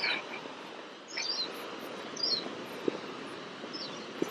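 A bird chirping, four short calls about a second apart, each sliding down in pitch, over the steady rush of a waterfall.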